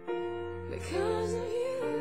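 Slow, tender music: a chord comes in at the start over a held bass note, and a wavering sung melody enters just under a second in.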